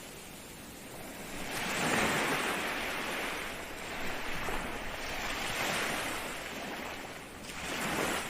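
Ocean waves breaking and washing on the shore in repeated swells of hiss: a big one building about a second in, further surges in the middle, and a shorter one near the end.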